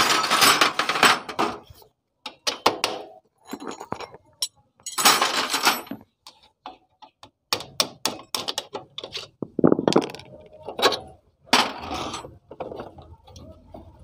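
Irregular metal clinks, knocks and short scrapes as the front axle of a CD-70 motorcycle is tapped out with a hammer and the front wheel is worked free.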